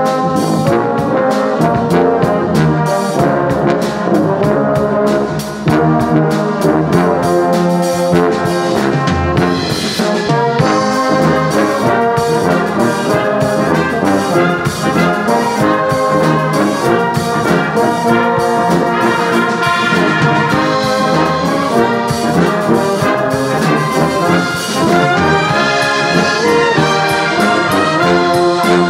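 Church brass band of trumpets, trombones, French horns, euphoniums and tubas playing a sacred piece in full, sustained harmony. A flute section joins in partway through.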